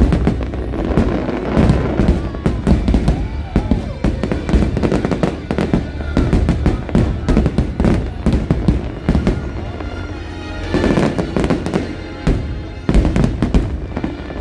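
Aerial fireworks display: many shells bursting in rapid, overlapping bangs and crackles, with the show's music playing alongside.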